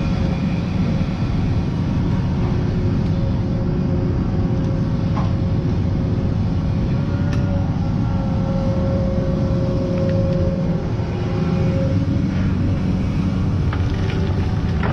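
Kobelco excavator's diesel engine running steadily, with a steady tone held over the low rumble and a few faint clicks.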